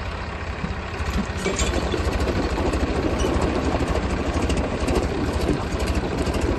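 Two diesel tractor engines working hard under heavy load as the tractors pull against each other on a chain in a tug of war. The engine noise is steady and gets louder about a second in.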